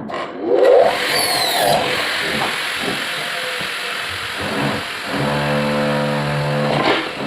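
A motor spinning up with a rising whine about half a second in, running noisily, then settling into a steady hum from about five seconds in.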